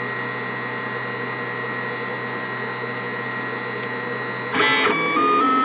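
Lulzbot Mini 3D printer running, a steady hum with several held whining tones from its fans and motors. About four and a half seconds in, it gives way to a louder short burst and then a run of tones that step up and down in pitch.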